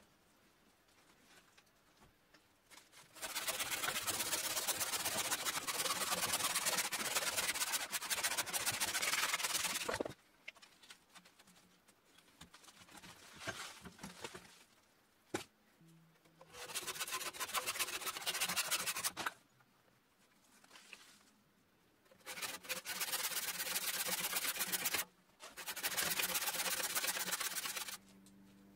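A saw cutting through green branches on a wet elm log, in four bouts of rasping strokes. The first bout runs about seven seconds, and two short bouts follow close together near the end.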